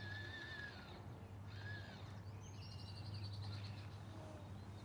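Birds calling: a short whistled note, then a quick trill of high repeated notes, over a low steady hum.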